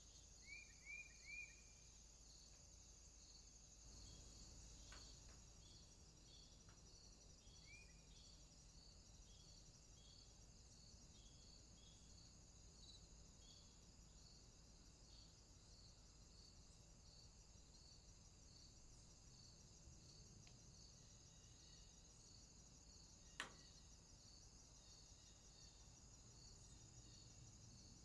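Faint insect chorus: a steady high hiss with an even chirping pulse about twice a second. A bird gives three quick rising chirps near the start and one more about eight seconds in, and there is a single sharp click later on.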